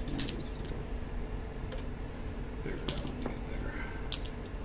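Short steel rods clinking against each other as they are picked up and set down on a desk: three sharp clinks, one right at the start, one about three seconds in and one near the end.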